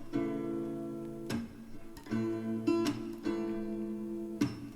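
Background music: strummed acoustic guitar chords, one strum about every second, between sung lines of a pop song.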